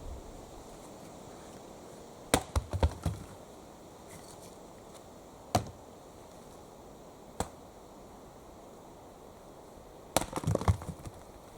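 Axe chopping into wood: sharp blows at irregular intervals, a quick run of several strikes a couple of seconds in, two single strokes around the middle, and another run of strikes near the end.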